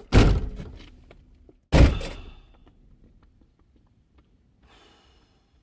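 Two car doors slammed shut about a second and a half apart, each a heavy thunk with a short rattling tail.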